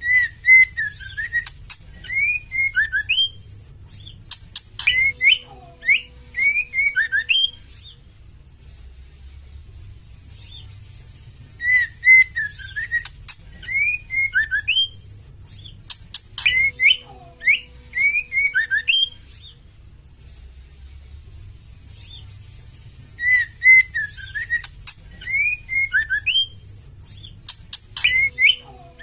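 Female white-rumped shama calls played as a lure to stir male shamas into song: bouts of a few seconds of short, rising whistled notes with fine high chattering, separated by short pauses. The same phrases repeat in a loop about every eleven seconds, over a faint low hum.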